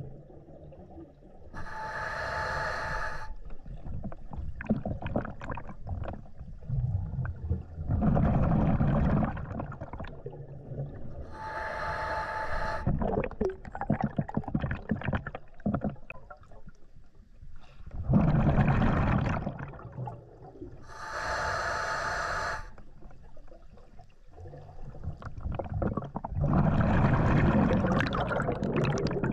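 Scuba diver breathing through a regulator underwater, three slow breaths about nine seconds apart. Each breath is a short hissing inhale with a buzzy tone through the regulator, followed some seconds later by a longer rumble of exhaled bubbles.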